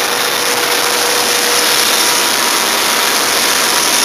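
Street sweeper truck running close by: a steady, even rushing noise from its engine and sweeping gear, with a faint steady whine held through it.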